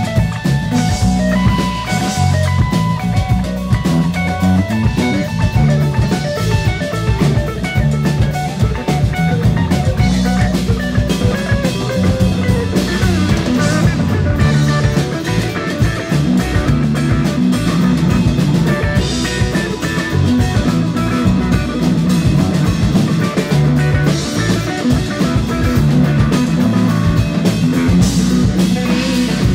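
Live rock band playing an instrumental jam: guitar over steady bass notes and a drum kit.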